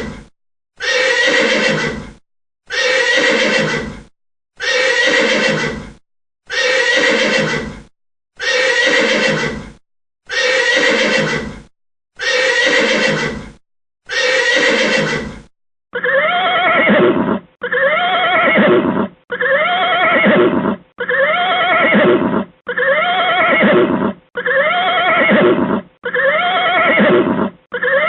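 Horse neighing sound effect: one short whinny repeated about eight times with brief gaps, then, a little over halfway through, a different whinny with falling pitch repeated in quick succession.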